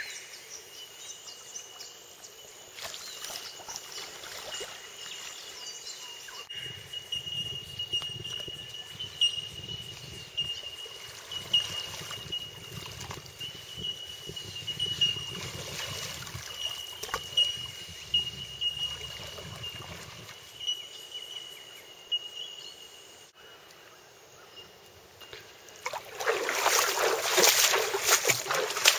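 Shallow river water trickling and splashing around a canoe being poled upstream, with short knocks and splashes throughout. The splashing gets much louder near the end.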